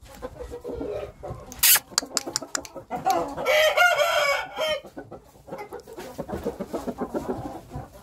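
Game-fowl rooster crowing once, a long wavering call starting about three seconds in, with chickens clucking around it. A sharp knock stands out about two seconds in.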